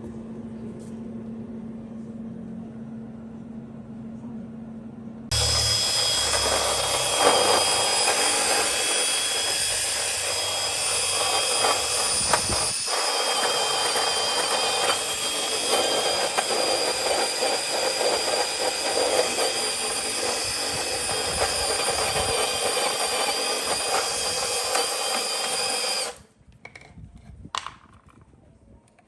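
A power tool switched on and run steadily for about twenty seconds, a loud whirring hiss with a high whine in it, then switched off abruptly. A steady low hum comes before it starts.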